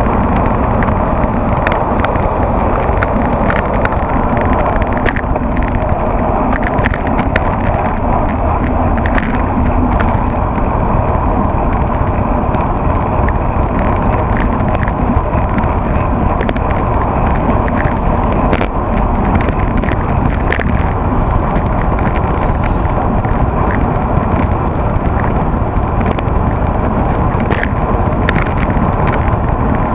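Steady wind rush and road noise at a handlebar-mounted action camera on a fast bicycle descent, with frequent irregular clicks and rattles from the bike and camera mount over the road surface.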